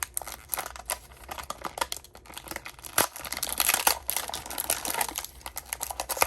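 Toy blister-pack packaging being handled and torn open by hand: irregular crinkling, crackling and tearing of plastic and card, with a few sharper snaps, the loudest about three seconds in.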